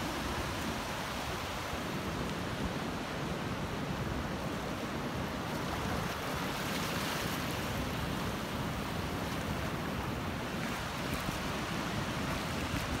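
Ocean surf: waves breaking offshore and shallow water washing across wet sand, a steady rushing hiss over a low rumble.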